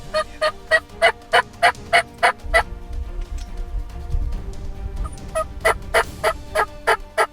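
Rio Grande wild turkey gobbling: two loud, rapid rattling gobbles, the second starting about five seconds in.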